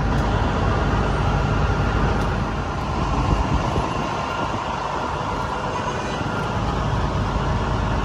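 Steady low rumble of idling heavy diesel engines, fire apparatus at the scene, over general street noise. The low engine note thins out for a few seconds midway, then comes back.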